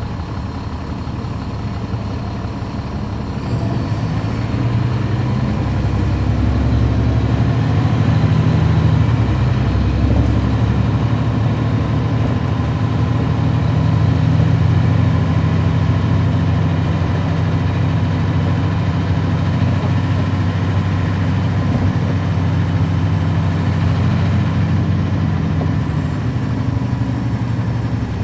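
Caterpillar C13 ACERT diesel engine of a 2009 NABI 40-SFW transit bus, heard from on board, running with a steady low drone that grows louder about three and a half seconds in and stays up.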